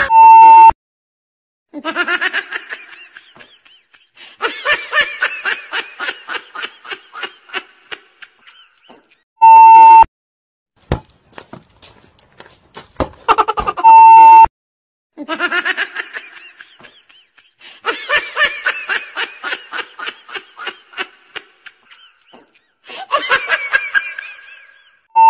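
A loud, steady test-tone beep of the kind played over TV colour bars sounds four times, each under a second, and breaks up long stretches of laughter that come in rhythmic pulses. Between the second and third beeps come a few sharp knocks.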